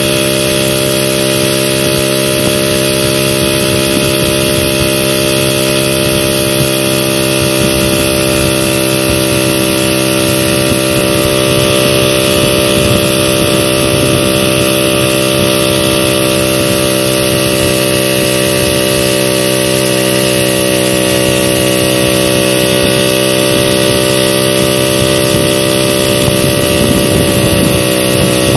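VéloSoleX moped's small two-stroke engine running steadily at an even pitch while the moped is ridden along.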